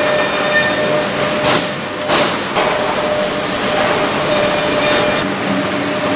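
Wood-processing machinery running with a steady hum, and two brief loud rushing sounds about one and a half to two seconds in.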